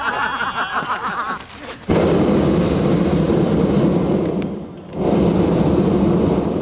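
Hot-air balloon's propane burner firing in two long blasts: a sudden loud roar about two seconds in, a brief break, then a second blast that stops near the end. Voices chatter before the first blast.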